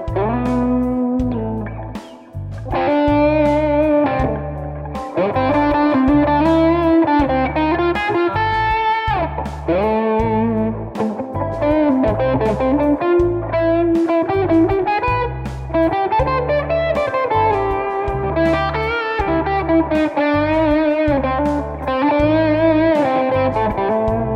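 Electric guitar with effects playing single-note A minor pentatonic lines, with some bent notes, over a steady low beat.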